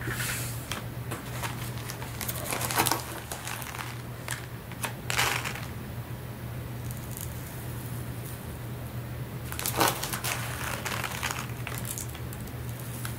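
Plastic bag of uncooked rice crinkling as rice is scooped from it with a tablespoon measure and slid into a small fabric pouch: a string of short, scattered crinkles and grain rustles.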